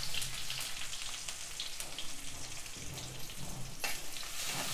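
Freshly added sliced onions sizzling and crackling in hot oil with mustard and cumin seeds in an iron kadai. A metal spatula scrapes the pan once near the end.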